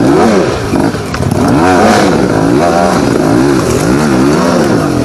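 Yamaha YZ125 two-stroke dirt bike engine climbing a steep dirt hill, its revs rising and falling in quick repeated surges as the rider works the throttle.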